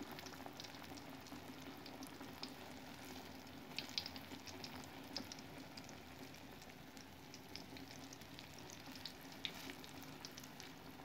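A block of tofu deep-frying in hot oil in a small wok: a steady sizzle with scattered crackles.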